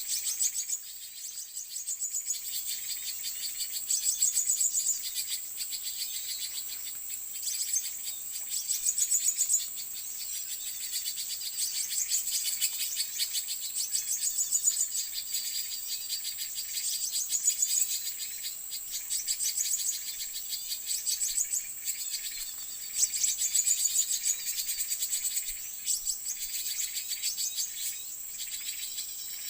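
Steady high-pitched insect chorus, with rapid high chirping of small birds coming in bursts every two or three seconds.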